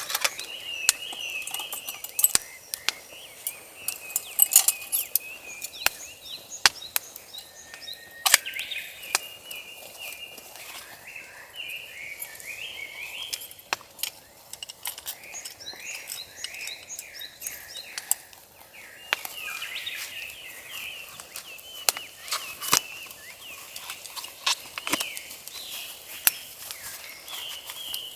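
Small birds chirping and twittering throughout, with frequent sharp crackles and pops from a wood campfire.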